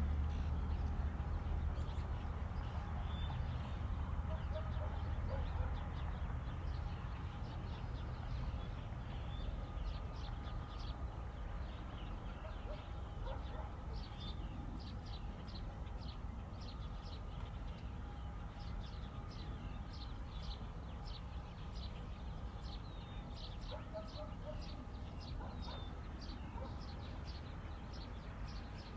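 Birds chirping in short, quick repeated calls, thickest through the second half, over a low rumble that slowly fades.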